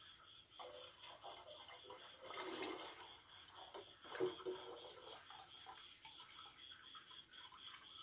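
Faint wet squelching and dripping as a mesh net of fermented fruit pulp is squeezed and the juice trickles through a plastic funnel into a bottle, with small crackles from the net and pulp.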